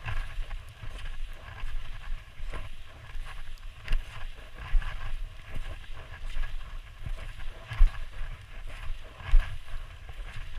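Skis sliding and hissing through deep snow, with irregular knocks and scrapes from the skis and poles, picked up by a body-worn action camera along with a low wind rumble on its microphone.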